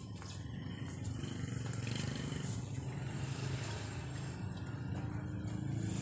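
A motor vehicle engine running, a steady low rumble with hiss, louder about two seconds in and again near the end.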